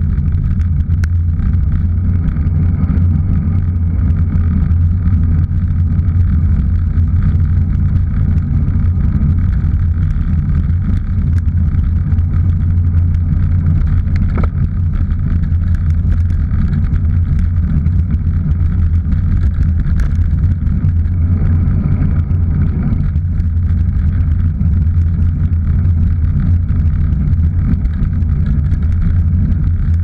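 Steady low rumble of wind buffeting and road vibration picked up by a GoPro Hero 3 mounted on a road bike as it rides along.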